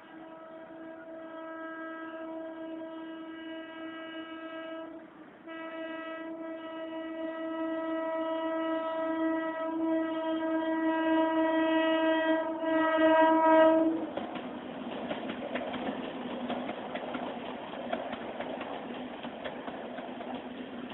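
Horn of an MMTS electric multiple unit local train sounding one steady note almost continuously as the train approaches, growing louder, with a brief break about five seconds in. About fourteen seconds in the horn stops and the passing train's rumble and wheel clatter take over.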